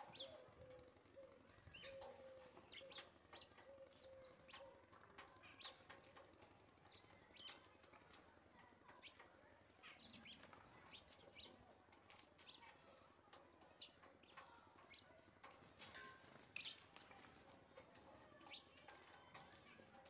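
House sparrows giving faint, short, scattered chirps, some close together and some seconds apart.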